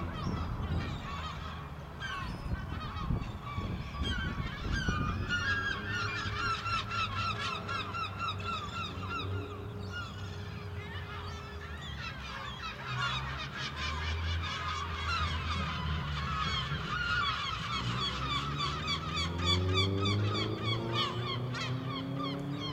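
Mute swan cygnets peeping: a continuous, rapid chatter of short high chirps, over a low rumble.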